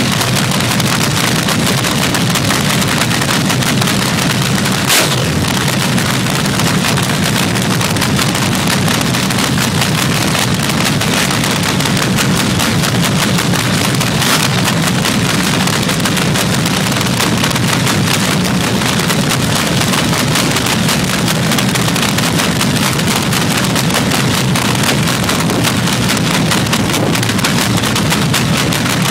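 Supercharged nitromethane-burning engine of a fuel altered drag car idling, a loud, steady, rapid crackle from the open exhaust, with one sharper crack about five seconds in.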